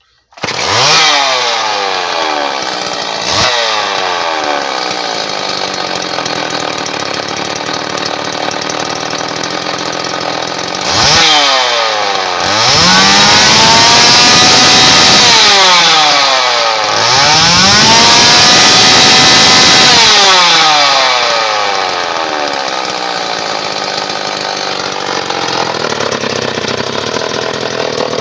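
Homelite Super 2 two-stroke chainsaw starting up and idling, its carburetor just adjusted. It is blipped twice in the first few seconds, then revved up twice to high speed for about four seconds each, the pitch rising and falling each time, before settling back to a steady idle.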